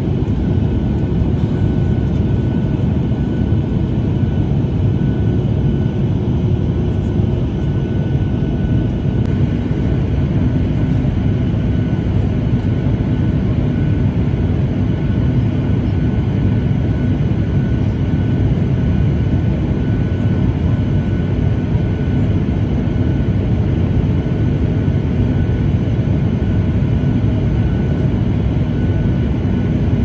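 Airliner cabin noise heard from a window seat in flight: the steady low rumble and rush of the engines and airflow, with faint steady whining tones.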